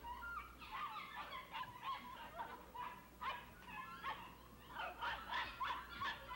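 Several dogs barking and yelping in kennels: a faint chorus of short, high calls, several a second.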